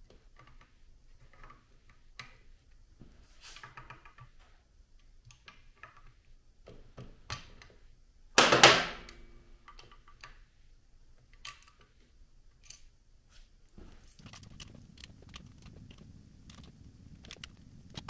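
Light metallic clicks and clinks of cam holders and bolts being handled on a 2007 Honda CBR1000RR's aluminium cylinder head, with one loud metal clank that rings briefly about eight and a half seconds in.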